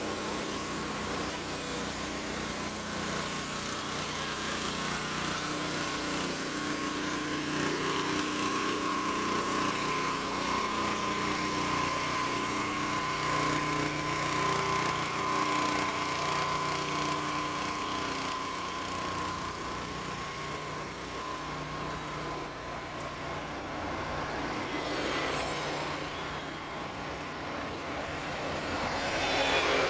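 Road traffic: vehicle engines running and passing steadily, with a double-decker bus passing close and getting louder near the end.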